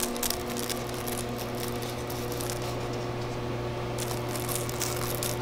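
Chocolate enrober running with a steady, even machine hum, with light crackling ticks over it.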